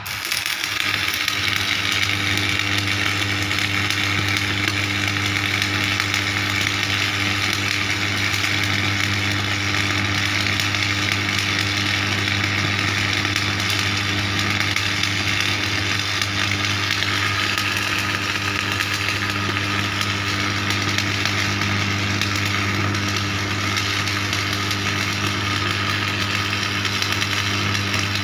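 Electric arc welding on a broken steel truck part: the arc starts abruptly and keeps up a steady crackling sizzle, with the welding machine's mains hum underneath.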